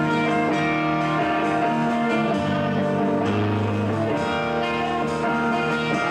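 Rock band playing live, guitars holding sustained chords that change every second or so.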